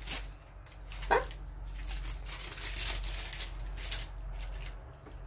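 Kitchen handling sounds by the stove: soft rustling and light knocks as things are moved about, with one short sharp sound about a second in, over a steady low hum.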